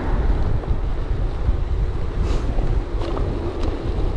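Wind buffeting a GoPro action camera's microphone while cycling: a loud, steady, low rumble with a few faint ticks.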